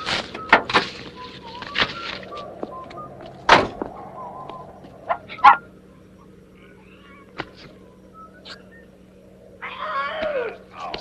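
A run of sharp knocks and thumps against a car body and window, with short faint squeaks between them, then a man's strained grunt near the end.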